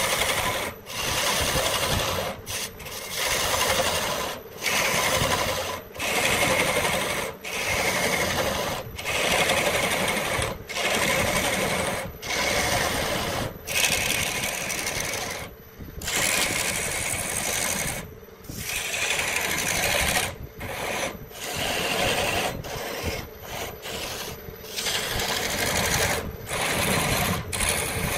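Repeated long scraping strokes of a hand tool across wood, one after another a little over a second apart, as a branch is shaped into a stick.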